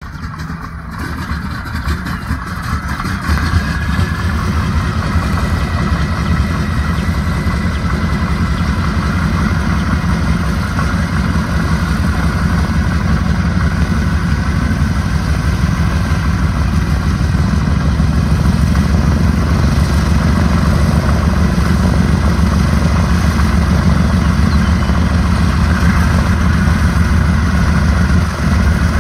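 Boeing B-17 Flying Fortress's Wright R-1820 Cyclone radial engines at start-up and idle. The sound builds over the first few seconds as engines catch, then runs steadily.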